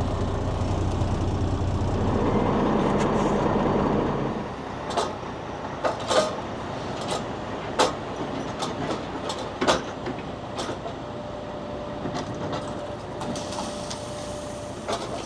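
Grain truck's engine running, louder for the first four seconds, then quieter, with scattered sharp clanks and knocks.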